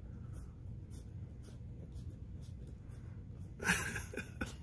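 Baby striped skunk mouthing and nibbling a grape on carpet: faint scattered wet clicks and scratchy rustles, with a short louder rustling burst about three and a half seconds in.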